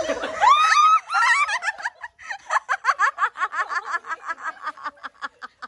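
A woman shrieks in fright with high, rising-and-falling cries, then breaks into a long run of rapid, high-pitched laughter, about five short bursts a second, trailing off near the end.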